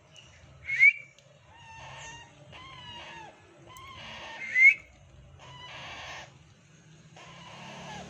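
Baby Indian ringneck parrots calling: two loud, sharp rising shrieks, about a second in and again near five seconds, with softer, lower calls in between.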